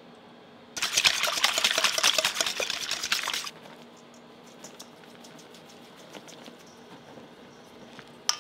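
Wire whisk beating liquid in a stainless steel mixing bowl: fast rattling strokes, roughly nine a second, for about three seconds, then fainter ticks, with a sharp clink near the end.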